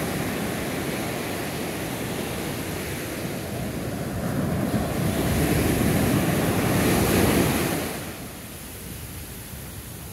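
Atlantic surf breaking and washing up the sand, with wind on the microphone. The noise swells to a peak about seven seconds in, then drops off abruptly just before eight seconds.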